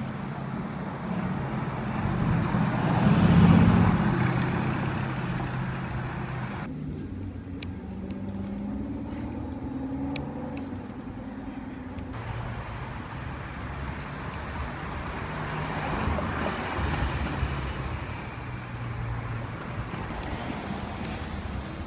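Cars driving past on a busy street. The loudest is a Mercedes-AMG GT's V8, which swells as it passes about three to four seconds in and then fades. After that come quieter engine sounds from other cars passing in traffic.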